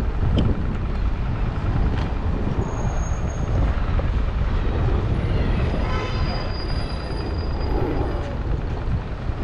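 Outdoor street ambience: a steady low rumble of road traffic and wind on the microphone, with a brief high-pitched ringing tone about six seconds in.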